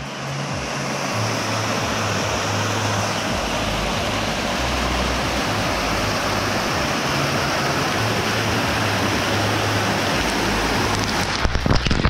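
Small waterfall splashing steadily into a rock pool. Near the end, falling water starts hitting the microphone directly in loud, irregular bursts.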